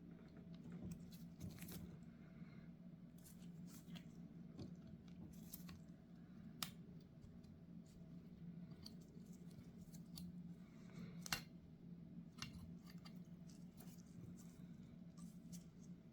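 Light, scattered clicks and taps of small metal parts and tools being handled while a Zenith 35/40 INAT carburetor's float bowl is taken apart, over a steady low hum. Two sharper clicks stand out, about six and eleven seconds in.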